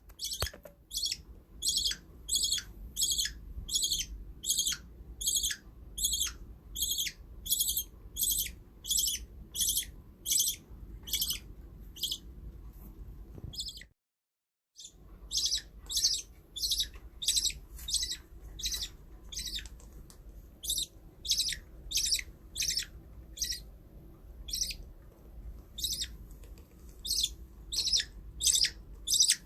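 Baby budgerigar chirping in a steady run of short, high-pitched calls, about two a second, with a pause of a few seconds midway.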